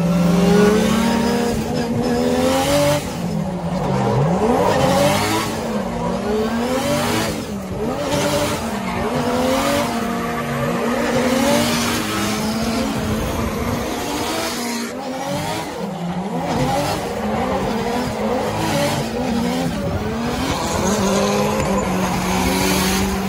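Drift car engines revving hard and bouncing up and down in pitch every second or so through a tandem drift, over the hiss and squeal of tyres sliding sideways. Heard from inside one of the cars.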